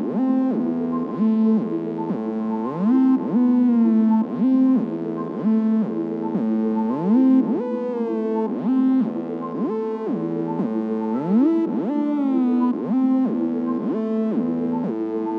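Electronic music with synthesizer notes that glide up and down in pitch.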